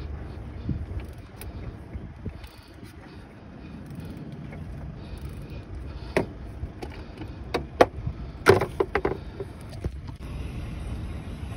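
Sharp metallic clicks and clinks of a wrench and socket on the crankshaft pulley bolt: a few single clicks, then a quick cluster of louder ones about two-thirds of the way through, over a low steady rumble.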